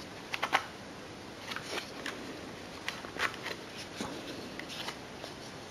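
Faint, scattered plastic clicks and light taps from a small model railway coach being handled, a dozen or so at uneven intervals, over a steady low room hiss.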